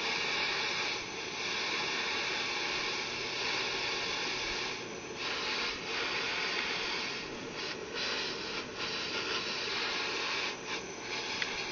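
Propane torch flame hissing steadily while heating a copper pipe joint for soldering, with a few brief dips in the hiss.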